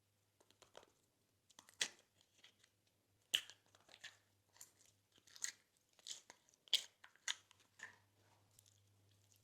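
Slime with crunchy add-ins being squeezed and mixed: an irregular run of crisp crunches and crackles, a few much sharper than the rest.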